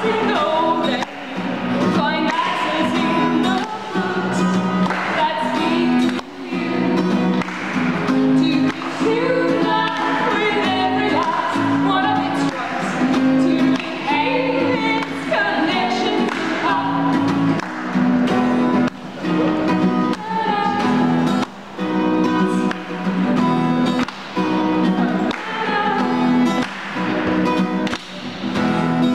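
Acoustic guitar strummed steadily, accompanying women singing a live song.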